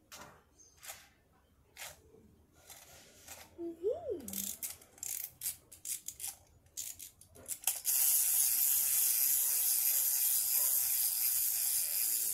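Small plastic toy figures being handled on a tile floor: scattered clicks and taps, and a short tone rising and then falling about four seconds in. About eight seconds in, a loud steady hiss starts and becomes the loudest sound.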